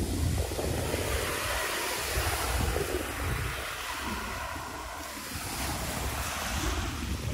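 Small waves breaking and washing over a pebble beach, the surf hiss swelling about a second in and again near the end, with wind buffeting the microphone.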